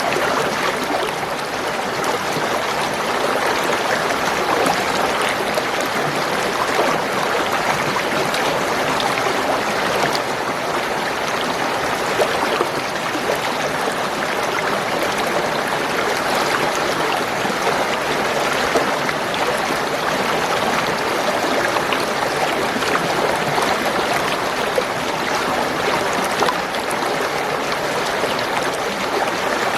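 Spring water gurgling and trickling in a steady, continuous flow.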